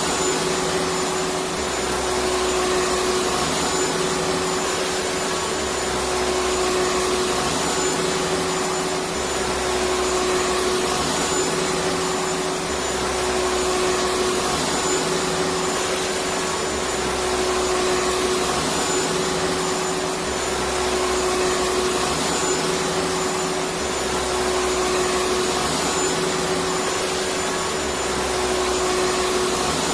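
Electric vacuum cleaner running steadily: a continuous whirring hiss with a steady hum, and a low rumble that comes and goes every couple of seconds.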